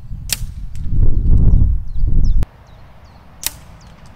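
Two air rifle shots about three seconds apart, each a short sharp crack. Between them comes a loud low rumble lasting about a second and a half that cuts off suddenly.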